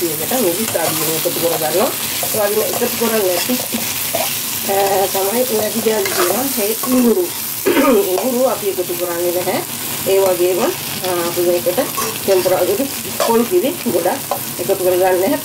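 Manioc (cassava) pieces sizzling in hot oil in a non-stick wok as a spatula stirs them and scrapes the pan, giving a steady hiss with repeated short, pitched scrapes.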